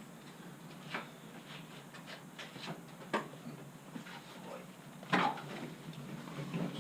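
A few light knocks and clicks, spaced about two seconds apart, over a low steady hum.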